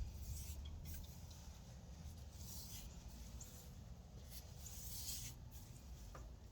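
Paintbrush bristles scratching as bonding primer is brushed onto a cedar beam: a few separate faint scratchy strokes, over a steady low rumble.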